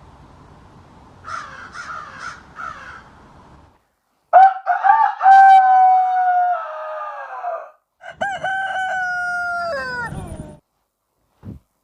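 Rooster crowing twice: two loud, long calls that hold their pitch and then fall away at the end. Before them, a few short, fainter bird calls over a low hiss.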